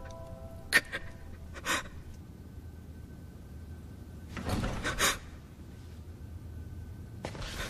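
A boy crying quietly: a few short, sharp sobbing breaths, the strongest pair about four and a half to five seconds in, over a faint steady tone.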